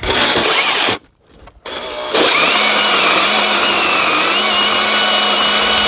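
Battery-powered chainsaw running at full speed and cutting into a birch trunk: a one-second burst, a short pause, then a long steady cut from about two seconds in with a high whine. It is the bore cut from the second side of the trunk that shapes the hinge.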